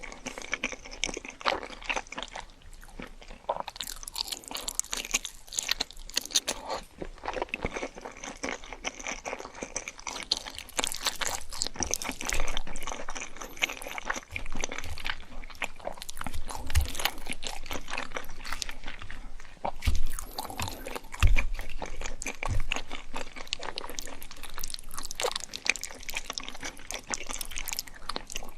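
Close-miked eating: crisp food being bitten and chewed, with continuous crackling crunches. A few dull low thuds come in the second half.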